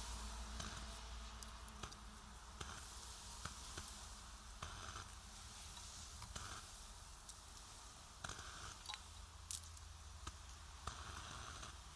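Faint campfire cooking sounds: scattered small crackles and clicks over a low hiss, with a few short bursts of sizzling.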